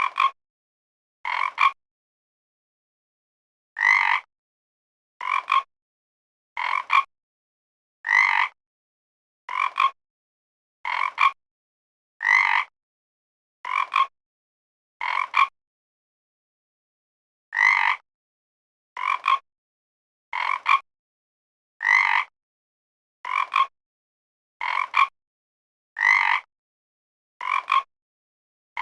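Frog croaking over and over, one short croak about every one and a half seconds, with two longer pauses. Between croaks there is dead silence and no background.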